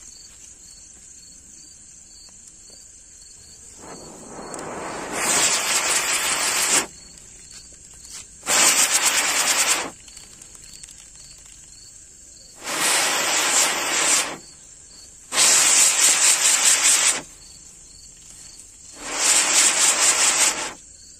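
A 'six wheel' Diwali firecracker, a spinning ground wheel of linked fountain tubes, firing its tubes one after another: five loud rushes of spark noise, each lasting about one and a half to two seconds, with short gaps between them.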